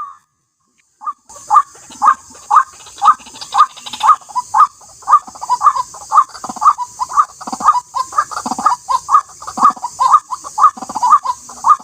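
White-breasted waterhen (ruak-ruak) calling: a steady run of short croaking notes, about two a second, starting about a second in. A steady high hiss runs behind the calls.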